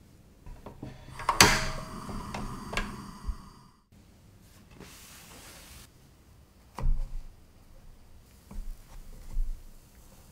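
Kitchen handling clatter: a sharp clank with a brief ring about a second and a half in, among smaller knocks, then soft knocks near the end as mini pizzas are set into a frying pan by hand.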